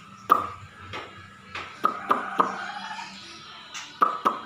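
Caged poksay (laughingthrush) giving short, sharp call notes, a few spaced out at first, then a quicker run of about four a second near the end.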